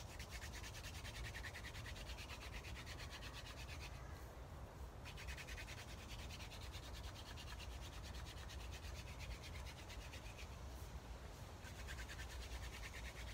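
Hand-drill friction fire: a long wooden spindle twirled back and forth between the palms, the hands rubbing down the shaft and its tip grinding into the hearth board with a rapid, even rasping. It breaks off for about a second around four seconds in, then carries on.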